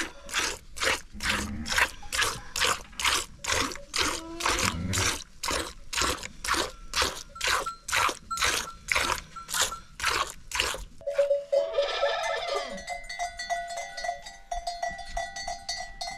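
A goat being hand-milked into a metal bowl: milk jets squirting into the bowl in a steady rhythm of about two strokes a second. About eleven seconds in the milking stops and a goat bleats.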